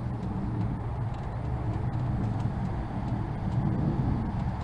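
A steady low rumble with no clear pitch and no change in level.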